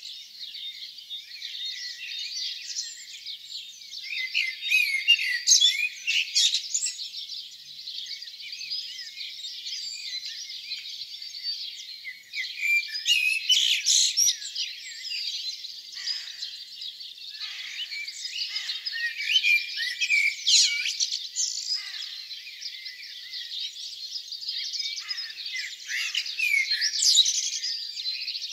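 Dawn chorus: many songbirds singing at once, their songs and calls overlapping densely throughout.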